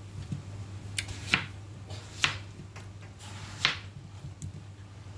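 A handful of short, sharp taps and clicks as cantaloupe is cut by hand and its pieces are set into a plastic food box, over a steady low hum.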